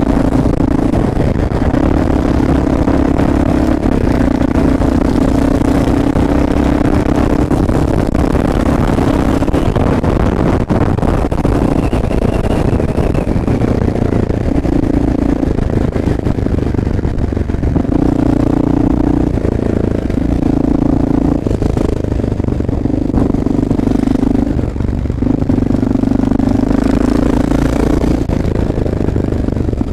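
Honda XR650L's air-cooled single-cylinder four-stroke engine running while the bike is ridden, its note coming and going in stretches over a steady low rumble.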